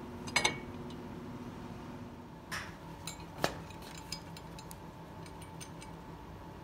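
Light metallic clinks and taps as a metal motor plate and its screws are handled against the steel frame of a belt grinder: a quick double clink about half a second in, then a few scattered single taps, over a steady background hum.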